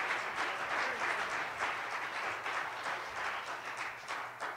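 Church congregation applauding, many hands clapping, slowly dying down toward the end.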